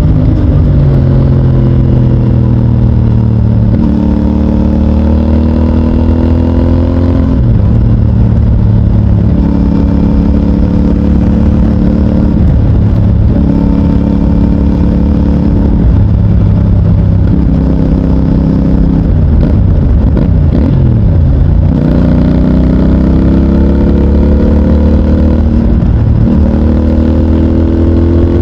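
CFMOTO 450NK's 449 cc parallel-twin engine through its stock exhaust, pulling hard and shifting up through the gears: the note climbs and drops back at each shift. About two-thirds of the way through the engine note falls as the bike slows, then it climbs again to the end.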